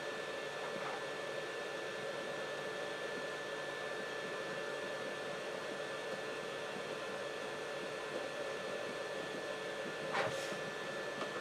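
Hot air rework station's fan blowing steadily: an even hiss with a steady whine in it. A brief light tap about ten seconds in.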